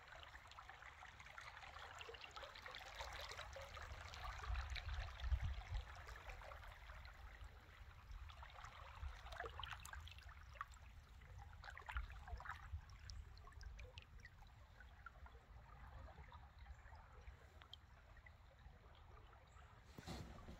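Faint trickling and lapping of flowing creek water with scattered small drips, a little louder about four to five seconds in, over a low rumble.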